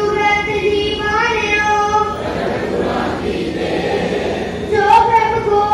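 A congregation of voices, children's among them, chanting together in unison in long held notes, breaking off about two seconds in and starting again near the end.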